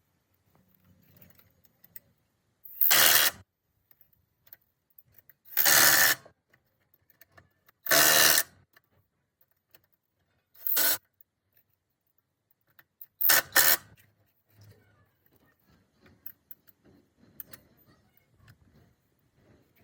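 Five short bursts from a workshop tool, each under a second, the last a quick double, with near silence between them.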